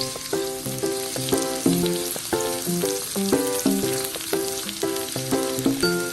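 Food frying in a pan: a steady sizzle of hot oil, with background music of short, evenly paced notes over it.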